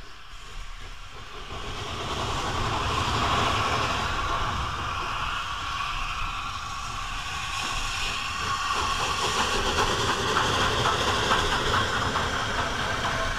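LNER Pacific steam locomotive on the move, with steam hiss and running noise growing louder over the first few seconds. About nine seconds in, a quick regular beat comes in.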